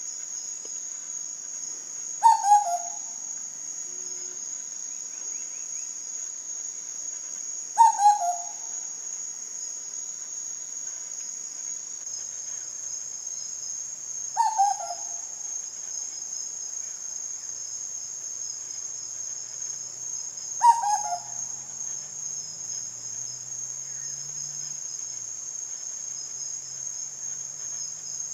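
Steady high-pitched insect drone, with a bird's short call of a few quick falling notes repeated four times, about every six seconds.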